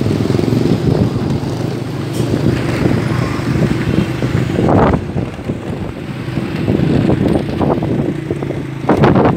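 Road vehicle engines running steadily on the move along an unpaved road, a low droning hum under a noisy rush, with two louder rushes of noise about five and nine seconds in.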